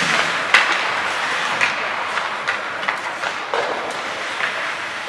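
Ice hockey play on the rink: a steady hiss of skates on the ice, broken by a string of sharp clacks of sticks and puck, the loudest about half a second in.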